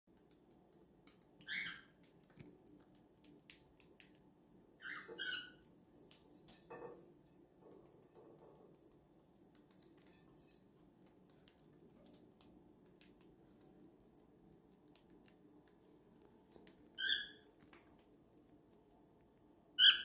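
Cockatiel giving four short chirps spaced far apart, the last one near the end the loudest, with faint scattered clicks in between.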